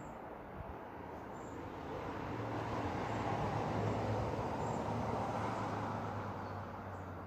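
A motor vehicle passing by, its engine and road noise swelling to a peak about halfway through and then fading away.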